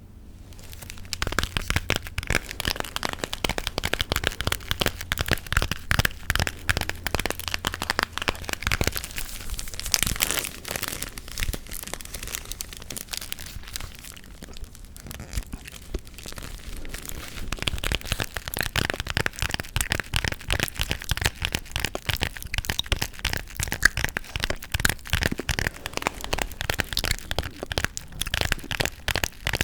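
Close-miked ASMR gum chewing and tapping: a dense stream of sharp snaps and clicks, many per second.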